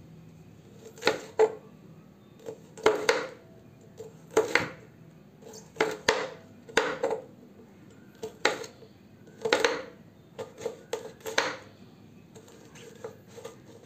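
Knife slicing bitter gourd into rounds on a cutting board: a series of sharp knocks of the blade striking the board, at an uneven pace of one or two a second, often in quick pairs.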